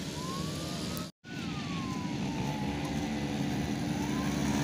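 Ambulance siren wailing, its pitch slowly rising and falling, over the steady running of quad-bike (ATV) engines that grow louder near the end as one approaches. The audio cuts out for a moment about a second in.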